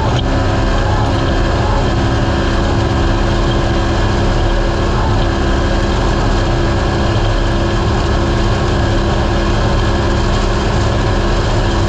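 Naturally aspirated race UTV's engine running hard at a steady, unchanging pitch, over a loud constant rumble of the vehicle at speed.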